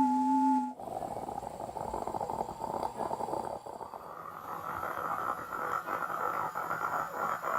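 A steady electronic two-tone hum cuts off under a second in. It gives way to a rough, rapidly crackling buzz, a mouth-made noise run through an app's audio filter as a sci-fi sound effect, which moves up in pitch about halfway through.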